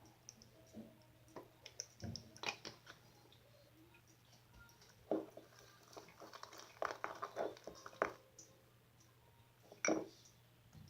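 Glossy slime being squeezed and poked by hand, giving irregular sticky squelches and small clicks. There are louder clusters of them about two seconds in, from about five to eight seconds, and once more near the end.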